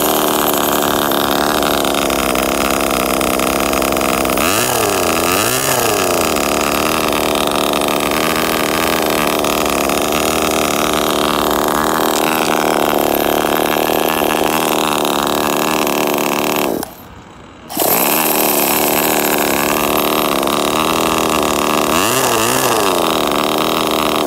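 Miniature single-cylinder model engine running steadily. It revs up and back down twice, about five seconds in and again near the end. The sound drops out for about a second a little past the middle, then the engine runs on.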